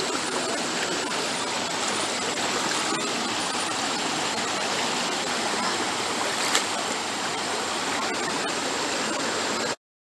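Shallow river rushing steadily over rocks and stones, with a single brief tick about six and a half seconds in. It cuts off suddenly near the end.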